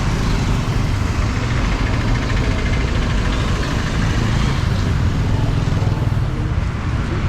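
Downtown street traffic: a steady low rumble of vehicle engines and road noise.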